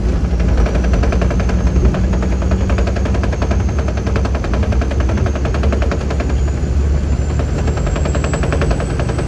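Rapid, steady rattling flutter of a loose piece at a semi truck's windshield blowing in the wind at highway speed, over the low drone of the truck's engine and a thin high whine that slowly rises. The driver says this windshield noise still needs fixing at his next service.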